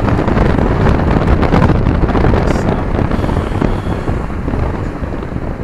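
Loud wind noise buffeting the microphone over a rumble of street traffic, easing off near the end.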